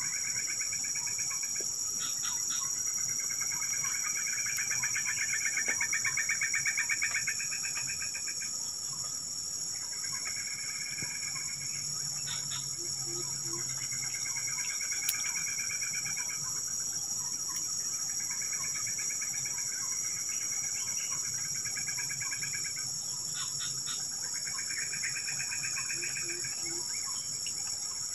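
Steady high-pitched insect chorus, with a pulsed trill a couple of seconds long repeating every few seconds.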